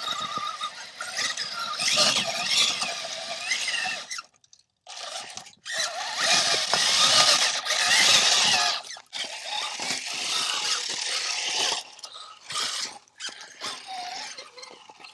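Axial SCX6 RC crawler on an RC Speedy chassis driving over rock in bursts: the electric motor and drivetrain whine rises and falls with the throttle over the scrape and crunch of tyres on stone. It stops briefly about four seconds in, and the loudest run comes a couple of seconds after that.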